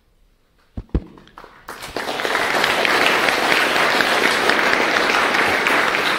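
Two short low thumps about a second in, then an audience applauding steadily.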